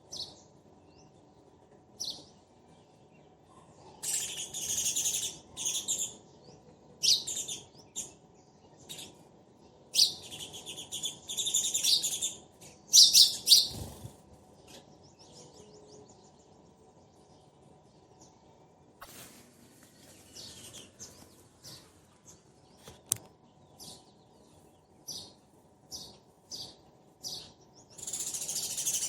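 A pair of sparrows chirping back and forth in quick bursts of high chirps, the busiest about a third of the way in, with single scattered chirps later on.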